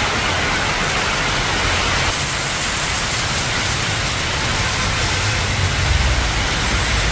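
Heavy rain falling as a steady, even hiss, with a low rumble growing near the end.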